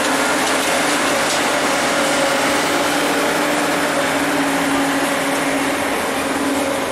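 Zamboni ice resurfacer running on the rink, a steady engine hum over a broad hiss.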